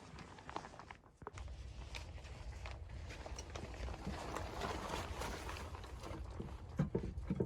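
Footsteps crunching through snow, with a steady low rumble setting in about a second in; the steps turn into heavier, regular thumps near the end.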